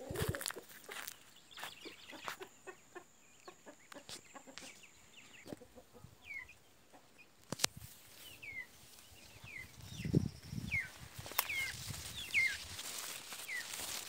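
Chickens calling: a string of short falling chirps, about eight over the second half, while footsteps crunch on dry leaves and twigs, with a few low thumps.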